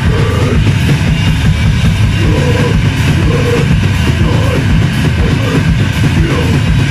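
Rock band playing loud, dense heavy music on distorted electric guitar, bass guitar and drum kit.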